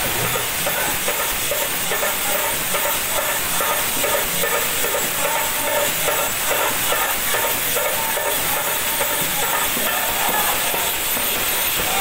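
Devotional bhajan music: a group singing with a harmonium, a barrel drum (dholak) played by hand and small hand cymbals. The cymbals' continuous jingle sounds like a loud steady hiss over the voices.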